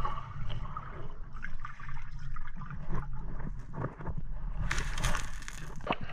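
Water sloshing and splashing close to the microphone, with scattered small splashes and a louder rush of water lasting about a second near the end.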